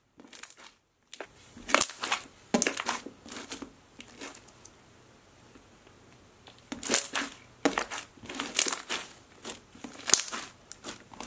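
Clear floam slime full of foam beads being poked, stretched and pressed by hand, giving bursts of crackly clicking and crunching. There is a quieter stretch in the middle.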